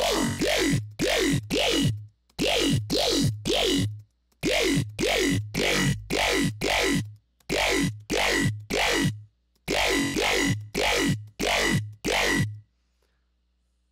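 Dubstep bass one-shot from an Xfer Serum patch, played again and again in short hits about two a second, each with a falling pitch sweep, in phrases broken by brief silences. Its timbre shifts from hit to hit as the filter cutoff and filters are tweaked.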